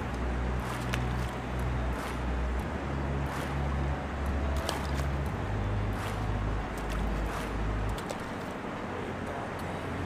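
Background music with deep held bass notes that change every two to three seconds over a steady hiss. The bass drops away about eight seconds in.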